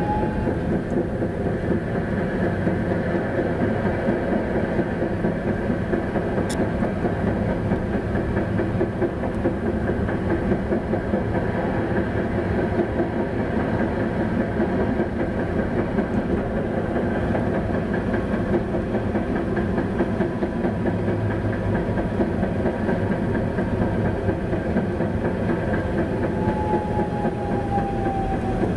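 Tatra T6A5 tram running along its track, heard from on board: a steady rumble of wheels on rails and running gear. Near the end a thin motor whine comes in and drops in pitch.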